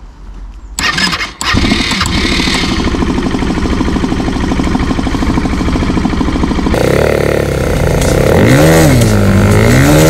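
Quad bike engine starting about a second in and settling into a steady run. Past the middle the sound changes abruptly, and near the end the engine's pitch falls and rises twice.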